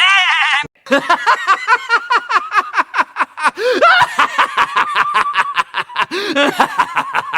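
Rapid, high-pitched laughter played as a sound effect: a short squeal, then a long string of quick "ha-ha-ha" pulses, several a second.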